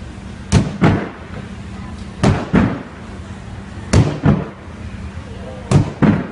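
Wooden teeterboard banging in a steady rhythm as two acrobats alternately land on it and launch each other: pairs of sharp thuds about a third of a second apart, repeating roughly every second and a half to two seconds, four times.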